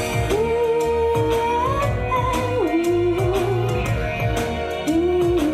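A woman singing a wordless, held melodic phrase over a pop backing track. She holds a long, slightly wavering note, then steps down to a lower one, and starts a new phrase near the end.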